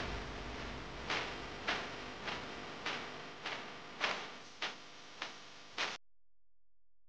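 A steady ticking beat, one tick about every 0.6 seconds over a soft hiss, fading slightly and then cutting off abruptly about six seconds in.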